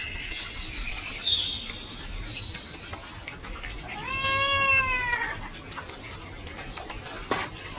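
A cat meowing: one long, clear meow about four seconds in that rises and then falls in pitch, with fainter high, thin calls in the first couple of seconds and a few sharp clicks near the end.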